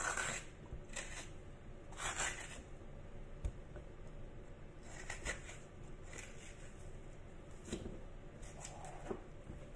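Spoon scraping the white pith and seeds out of a halved bitter gourd: short, soft scrapes at irregular intervals, a few seconds apart.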